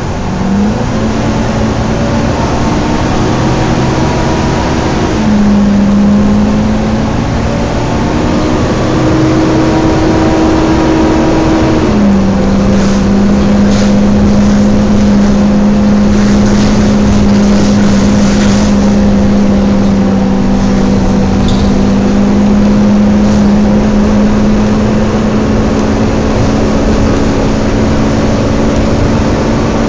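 Volvo B9TL bus's cooling fan and engine running loudly, heard from inside the bus, with a steady droning tone over road noise. The tone steps up and down in pitch a few times, then holds steady from about twelve seconds in.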